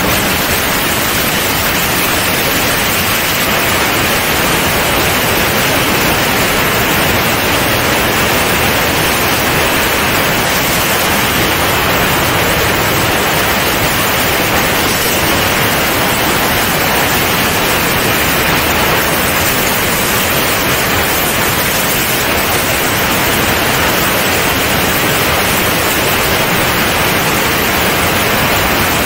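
Steady, loud rush of airflow hitting a camera mounted outside a C42 microlight in flight, an even hiss with no engine note standing out.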